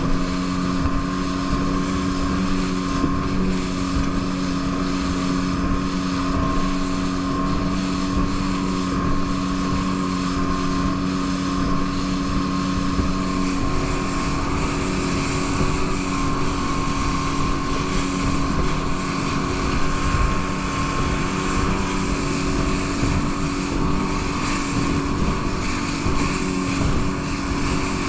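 Rigid inflatable boat running at speed, about 28 mph: a steady engine note under the rush of spray along the hull. One of the engine's lower tones drops away about halfway through.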